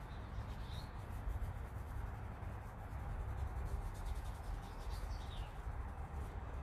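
Paintbrush rubbing fabric paint into a denim jacket, over a steady low background rumble. Two faint high chirps come through, one about a second in and one around five seconds in.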